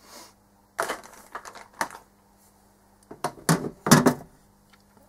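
Computer keyboard typing in two short bursts of clicks, about a second in and again about three seconds in: an online search for a replacement switch.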